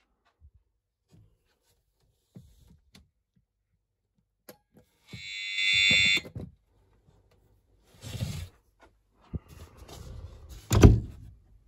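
An alarm panel's buzzer sounds a loud, harsh, high-pitched tone for about a second and then cuts off, set off by the General Alarm during the weekly tornado-alert test. Rustling and handling noises follow, with a sharp knock near the end.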